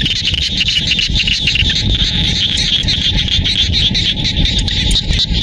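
Chorus of many frogs calling at once, a dense, fast-pulsing trill of overlapping calls, with a low rumble underneath.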